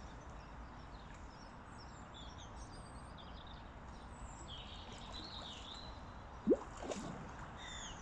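Outdoor background hiss with small birds chirping and calling. About six and a half seconds in comes a short, loud squeak rising quickly in pitch, with a fainter one just after.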